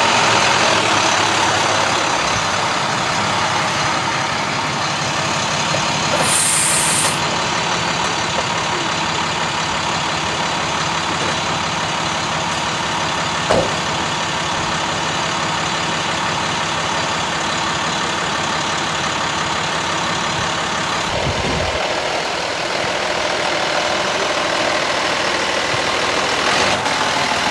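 Steady truck engine and road noise from a moving heavy vehicle, with a short high hiss about six seconds in and a single click about halfway through.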